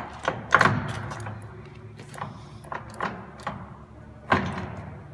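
Metal clunks and clicks from the headstock speed-change lever of a Longem gear-head engine lathe being shifted while the chuck is turned by hand to bring the gears into mesh, about eight knocks with the loudest near the start and about four seconds in. A steady low hum runs underneath.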